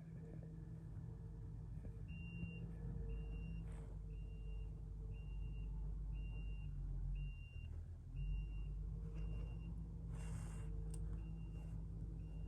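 Diesel engine of a construction vehicle running while its backup alarm beeps about once a second, signalling that it is reversing; a short hiss comes near the end.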